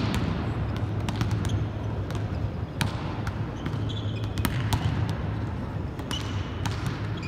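Volleyballs being spiked and bouncing off an indoor court floor during warm-up: irregular sharp slaps and thuds, several a second at times, over a steady low hum.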